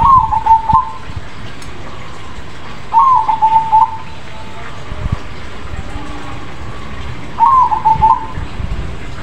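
A crossbred zebra dove (perkutut) cooing its song three times, about three to four seconds apart. Each phrase lasts about a second: a short opening note that falls in pitch, then a quick run of lower coos. There is a steady low background hum.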